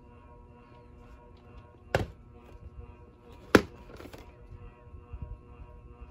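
A plastic VHS clamshell case knocked against a wooden floor as it is handled and flipped over: two sharp knocks about a second and a half apart, the second louder, then a few lighter taps.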